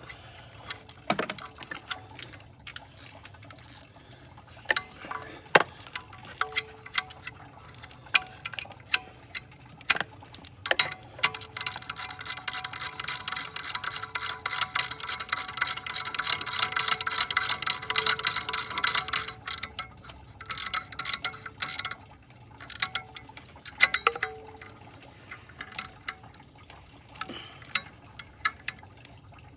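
A 3/8-inch ratchet clicking as the thermostat-housing nut and bolts are run down on a 6.7 Cummins diesel. Scattered clicks and metal knocks at first, then a steady run of fast ratchet clicks lasting about eight seconds from around ten seconds in, then scattered clicks again near the end.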